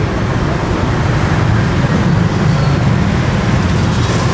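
Steady rumble of road traffic, swelling a little about two seconds in.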